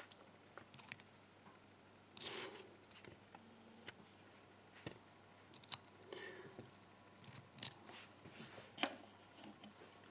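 Faint, scattered metallic clicks and scrapes of a hook pick and tension tool working the pins inside a rekeyable five-pin padlock during single-pin picking.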